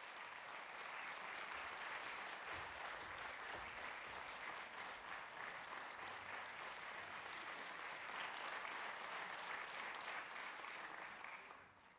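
Audience applauding steadily as performers walk on, then dying away near the end.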